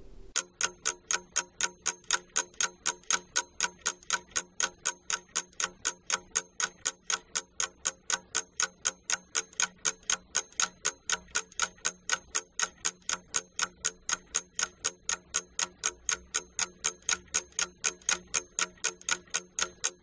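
Clock-like ticking sound effect of a countdown timer, about four even ticks a second, over a faint steady low tone. It stops just before speech resumes.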